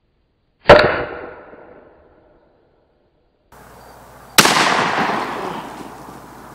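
Two 12-gauge shotgun blasts from a Smith & Wesson 916A pump shotgun, cut in separately. The first, under a second in, is sharp with a brief ringing tail. The second, about four seconds in, has a long echo that fades over about two seconds.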